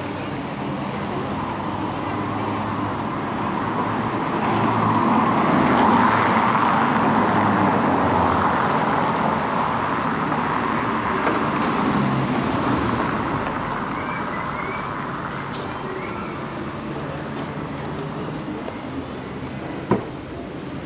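Street traffic: motor vehicles running by, the noise swelling as one passes close about five seconds in and again around twelve seconds. A single sharp knock near the end.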